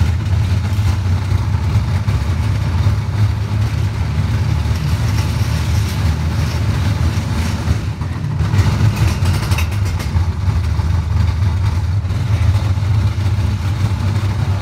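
Galaxi steel roller coaster train running along its track, heard from on board: a steady low rumble with a constant rushing noise over it.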